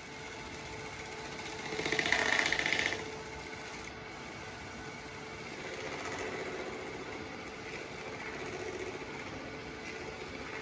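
Wood lathe running with a steady motor hum while sandpaper is held against the spinning oak burl hollow form, a soft rubbing hiss over the hum. A louder, buzzy rasp lasts about a second, around two seconds in.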